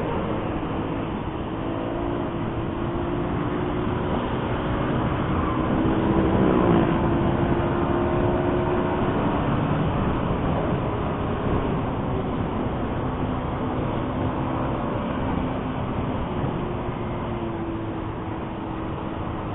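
Vehicle engines and road noise on a highway, running steadily. About six to seven seconds in, a louder vehicle passes close and its pitch falls as it goes by.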